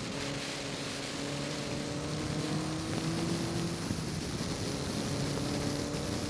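A Westfield sports car's Ford Zetec four-cylinder engine pulling hard, its note climbing steadily, then breaking off briefly about four seconds in and coming back lower. Heavy wind and road noise rush over the open cockpit.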